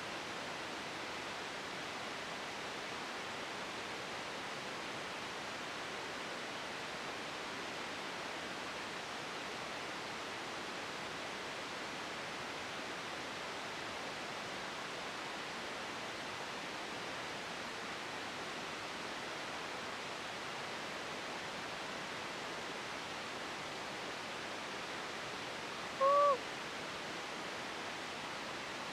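Steady, even hiss, with a single short pitched call, rising then falling, near the end.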